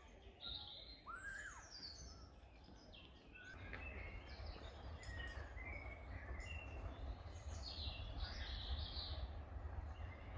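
Woodland birds singing, several short songs and calls overlapping. A low rumble comes up about three and a half seconds in and stays under the birdsong.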